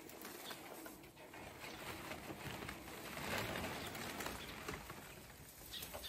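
Hay and a woven plastic feed sack rustling as hay is pulled out by hand and dropped into a sheep feeder.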